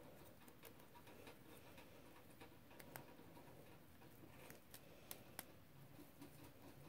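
Near silence with faint, scattered small clicks and rustles of fingers working a hairnet off a doll's hair around its barrette.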